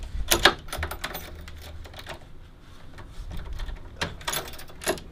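Keys clicking and rattling in a front door's lock as the door is locked: a string of small metallic clicks, with louder clacks about half a second in and again near the end.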